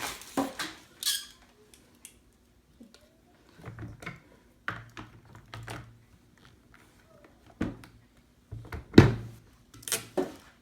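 Scattered knocks, clicks and clatters of blender parts and packaging being handled, with one louder knock about nine seconds in.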